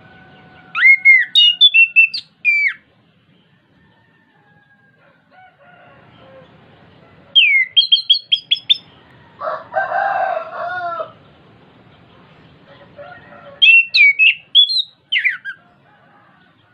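Chestnut-capped thrush singing three short, loud phrases of rapid, sliding whistled notes, a few seconds apart. About ten seconds in, a rooster crows in the background.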